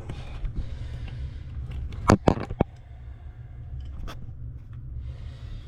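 Hand tools knocking against a rusted faucet's fittings under a sink: three sharp knocks close together about two seconds in, then one more, over a steady low hum.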